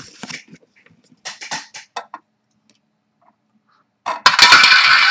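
Small handling clicks, then a prize wheel set spinning about four seconds in, giving a loud, fast run of clicks.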